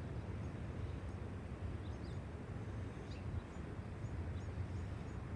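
Steady low rumble of coastal wind buffeting the microphone, with small birds giving a scattered series of faint, short, high chirps.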